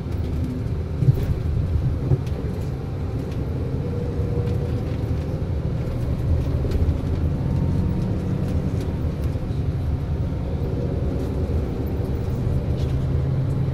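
Steady engine and road rumble heard from inside a moving tour bus, with a couple of light knocks about one and two seconds in.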